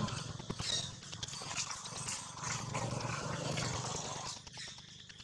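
Long-tailed macaques shifting about on dry leaves, the leaves rustling and crackling, with faint monkey sounds. It quietens about four seconds in.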